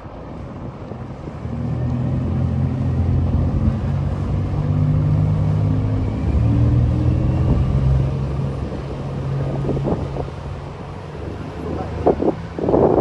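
Engines of a 39-foot sport yacht droning as it runs past at speed: a low, steady hum that swells from about a second and a half in and fades after about ten seconds. Wind buffets the microphone near the end.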